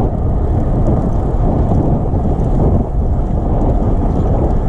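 Loud, steady low rumbling noise, like wind buffeting the microphone.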